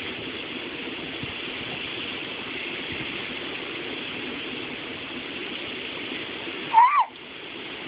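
Steady background hiss, broken near the end by a baby's short, high squeal that rises and falls in pitch.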